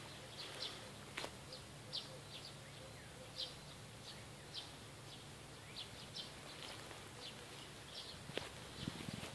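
Small birds chirping in the trees: short, high chirps repeating about twice a second, faint, with an occasional click.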